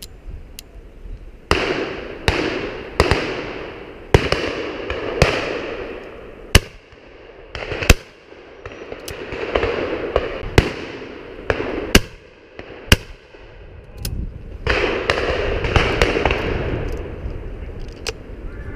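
A rapid, irregular volley of shotgun shots from several guns, about fifteen in all, some close and loud and others fainter, each trailing a long echo.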